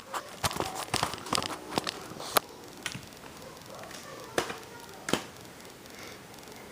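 A VHS cassette and its plastic case being handled, giving a quick run of plastic clicks and knocks in the first couple of seconds, then a few single clicks further apart.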